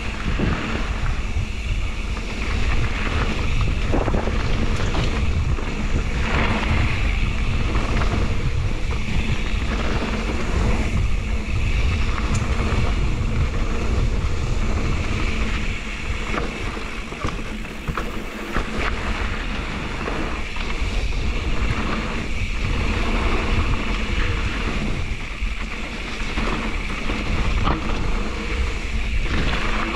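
Mountain bike riding down a dirt singletrack: a steady rush of wind on the microphone, mixed with tyres rolling over dirt and loose stones and scattered small knocks and rattles from the bike.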